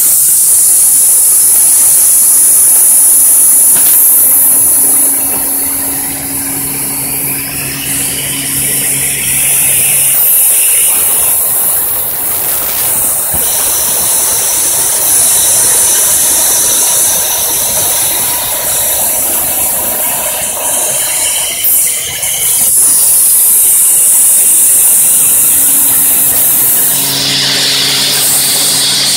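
Industrial automatic circular hemming sewing machine running as it hems a T-shirt, with a steady hiss of factory machinery throughout. The machine's low, steady hum comes in twice, for a few seconds each time.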